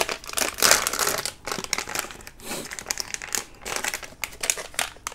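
Plastic packaging bag crinkling as it is torn open and peeled off, with a dense run of crackling about half a second to a second and a half in, then scattered crackles.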